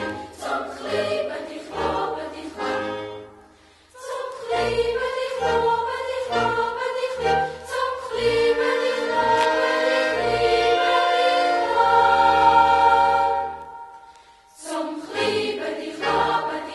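Youth choir singing a Swiss folk song in parts. The phrases break off briefly about three and a half seconds in and again near fourteen seconds, with a long held chord in between.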